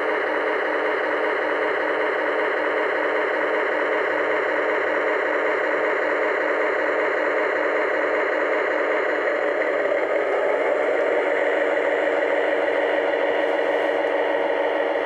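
Lionel O-gauge Alco S4 switcher locomotive crawling at very low speed, giving a steady engine hum.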